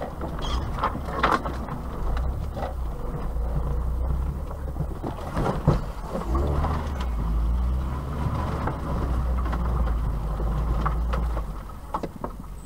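Vauxhall Astra Mk3 driving over a rutted dirt track, heard from inside the cabin: a steady low engine and road rumble with scattered knocks and rattles as it goes over bumps. The sharpest knock comes about six seconds in.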